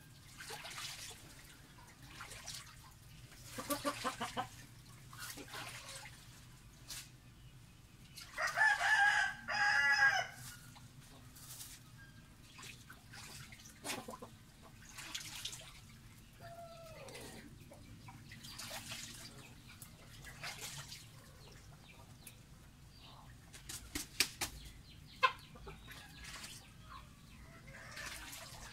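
Domestic fowl calling: a few pitched calls, the loudest a pair of ringing calls about a third of the way in, then a short falling call. Straw rustles and lightly clicks between the calls as the bird shifts on its nest.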